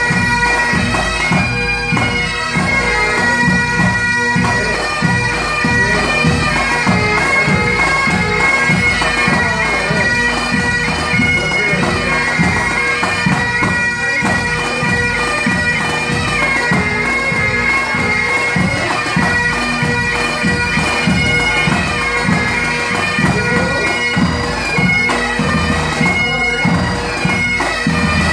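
Great Highland bagpipes of a pipe band playing a tune over their steady drones.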